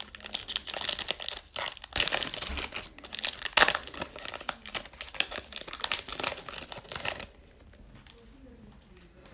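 Foil trading-card pack wrapper being torn open and crinkled, a dense crackling that stops suddenly about seven seconds in.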